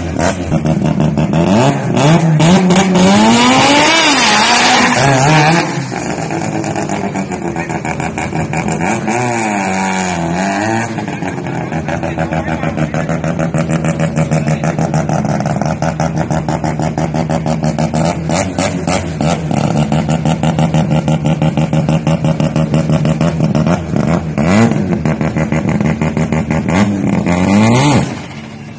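Turbocharged rotary engine of a Mazda RX-7 FC, blipped up and down several times and held at a steady, pulsing idle in between. The loudest revving comes a couple of seconds in, with more revs near the end.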